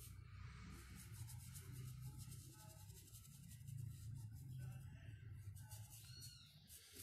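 Faint scratchy strokes of a paintbrush working PVA paint into a rough wooden board, many short strokes in a row, over a low steady hum.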